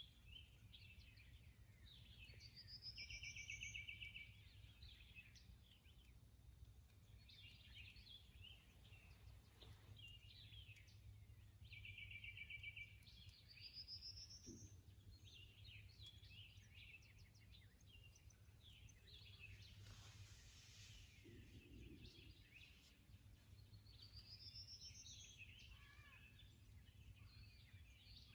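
Wild songbirds calling and chirping faintly. One song, a buzzy trill with a rising whistle, repeats three times about ten seconds apart.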